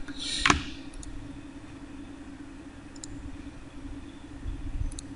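A steady low hum, with one short noise burst about half a second in and faint computer mouse clicks about one, three and five seconds in.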